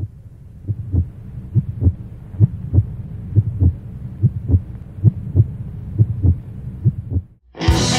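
Heartbeat sound effect: about ten pairs of low, muffled thumps, a pair a little under every second, over a low steady hum. It stops shortly before the end, and electric-guitar rock music comes in.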